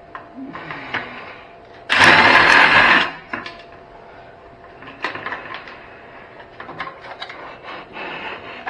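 Small handheld electric power tool run in one burst of about a second, then switched off. Light clicks and clatter of metal parts being handled before and after.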